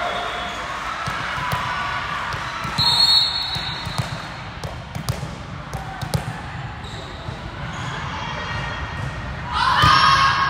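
Indoor volleyball gym din: balls thud on the court floor, and players and spectators talk. A short high whistle blast comes about three seconds in, and a burst of voices rises near the end as the serve goes over.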